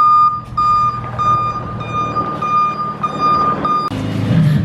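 Flatbed tow truck's warning beeper sounding a steady single-pitched beep a little under twice a second over the truck's engine running. The beeps stop abruptly about four seconds in, leaving the low engine hum.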